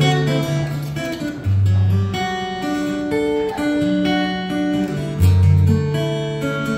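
Solo acoustic guitar playing an instrumental piece: a melody of ringing plucked notes over lower accompanying notes, with deep bass notes about a second and a half in and again near five seconds.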